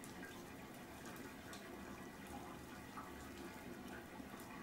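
Faint steady background hiss, with a few soft taps and rustles of gloved hands laying sliced ham onto bread.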